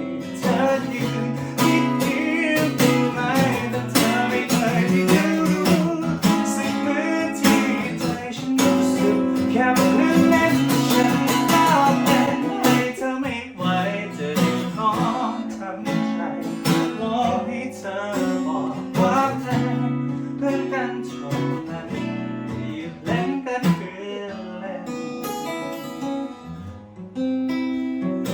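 Acoustic guitar strumming and picking an instrumental passage of a pop song, with gliding melody lines over the chords.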